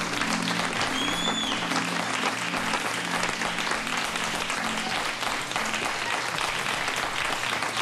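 An audience applauding, with a short rising-and-falling whistle about a second in, over soft music with low held notes.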